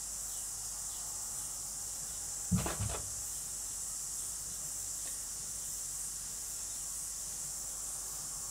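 Steady high-pitched hiss of recording room tone, with one brief soft low sound about two and a half seconds in.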